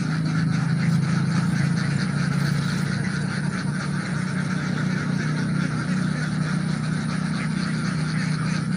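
A steady low engine hum with a constant hiss over it, unchanging throughout.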